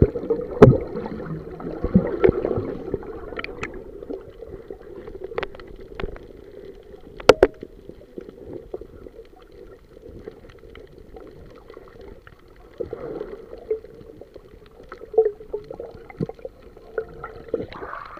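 Underwater sound through an action camera's housing during a freedive: a muffled steady hum with bubbling, broken by sharp clicks and knocks, the loudest about seven seconds in.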